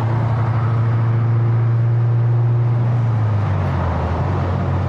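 Turbocharged Subaru flat-four running through a catless downpipe exhaust, heard from inside the moving car: a steady low drone that drops a little in pitch about three seconds in.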